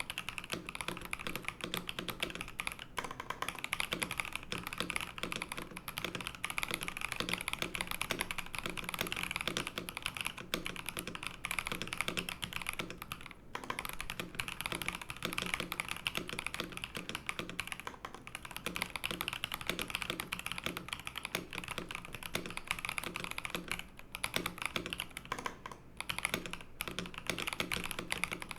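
Fast, continuous typing on a Darmoshark Top75 mechanical keyboard: rapid key clacks, with a few short pauses.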